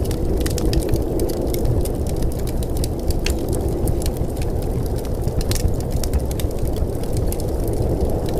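Steady muffled rumble with many scattered sharp crackles throughout.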